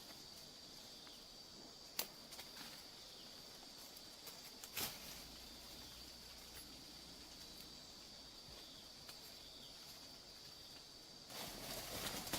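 Faint, steady high-pitched insect drone, with two sharp snaps about two and five seconds in. Louder rustling begins near the end.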